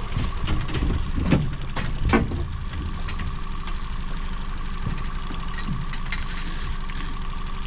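Boat motor running slowly, a steady low rumble with a thin whine, and a few knocks in the first couple of seconds.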